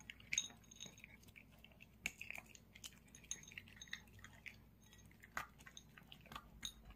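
Small dog eating dry kibble from a ceramic plate: quiet, irregular crunches of chewing, with small clicks of kibble and teeth against the dish.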